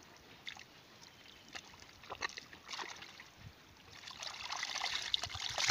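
Hands scooping and squelching through wet mud and shallow muddy water: scattered small splashes and sucking sounds, busier in the last second and a half, with one sharp splash at the very end.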